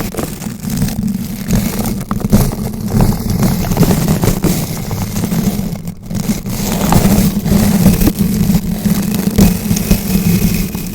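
Bristle brush rotating against a bare microphone: continuous scratching and crackling with a heavy, close rumble, dipping briefly about six seconds in.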